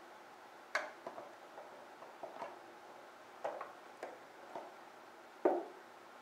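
Motorcycle airbox cover knocking and clicking as it is handled and pressed down onto its mounting grommets: about ten light, scattered taps, the loudest about five and a half seconds in.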